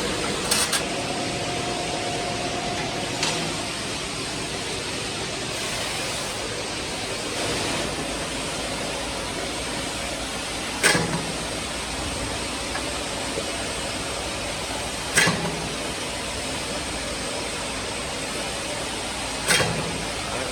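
Batten/top hat roll forming machine running: a steady mechanical noise with a faint high whine, broken by sharp bangs, three loud ones about four seconds apart in the second half.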